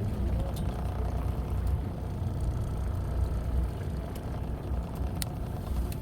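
Fishing boat's engine idling with a steady low rumble, with a few faint clicks over it.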